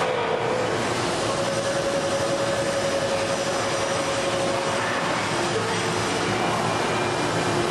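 Hydraulic press brake running with a steady, loud whir and hiss. A faint held tone sounds through the middle.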